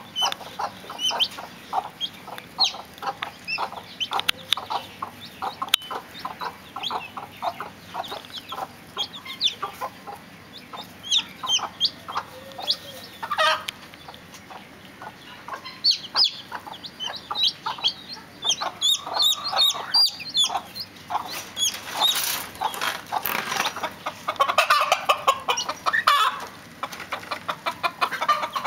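Domestic hens clucking in quick, repeated short calls, with chicks peeping high above them. The calls grow louder and busier a little past the middle.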